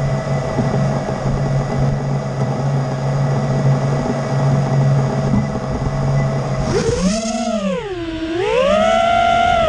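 FPV quadcopter's brushless motors spinning at idle on the ground with a steady hum. About seven seconds in the pitch swoops down and back up as it is throttled for takeoff, then settles into a higher, slowly rising whine as it flies.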